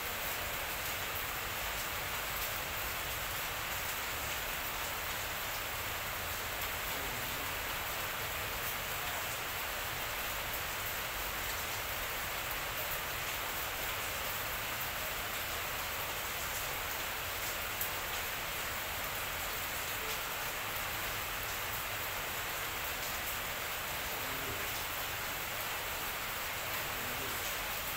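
Steady, even hiss like falling rain, with faint scattered ticks.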